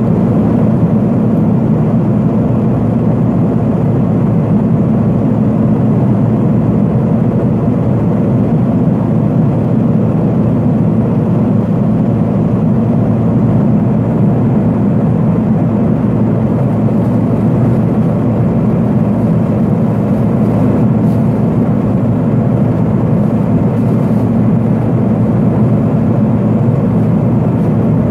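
Steady, loud drone of a Pilatus PC-12's single turboprop engine and propeller, heard from inside the cabin in flight.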